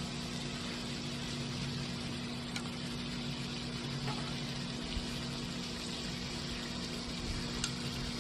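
Pork belly sizzling on a round griddle over a portable gas burner: a steady frying hiss, with a steady low hum underneath and a few light clicks of tongs and scissors against the pan.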